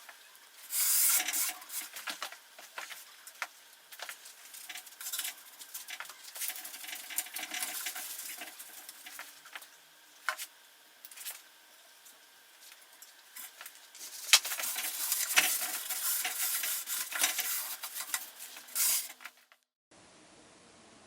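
Work on an old typewriter's metal mechanism: irregular small clicks and clinks mixed with scratchy rubbing and scrubbing noise, loudest about a second in and again in a long stretch near the end, then a short silence.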